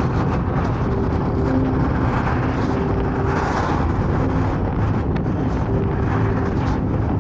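A car driving along a road: steady engine and tyre noise with a faint hum, and a brief swell of noise about three and a half seconds in.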